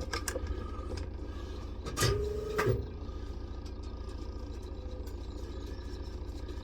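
A new tyre valve being worked into the wheel rim: a few clicks, then about two seconds in a short pitched squeak lasting under a second, over a steady low machine hum.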